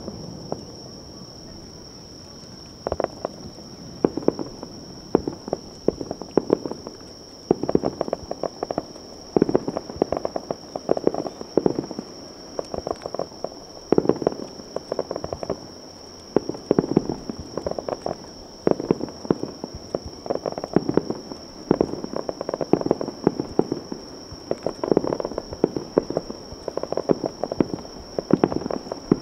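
Aerial fireworks crackling. Clusters of rapid sharp pops from crackle stars recur every second or two.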